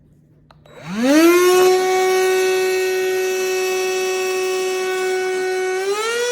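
Cordless handheld vacuum switched on with a click, its motor whine climbing to a steady high pitch within about a second and running on, rising slightly in pitch near the end.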